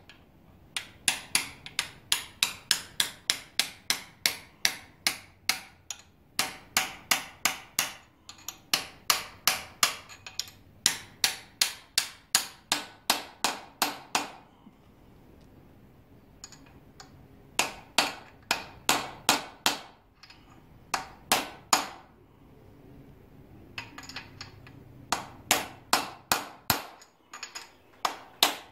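Metal-on-metal hammer strikes driving the crankshaft timing gear onto the crank snout of a Chevrolet 350 small-block, about three sharp taps a second in runs of several seconds with brief pauses between them.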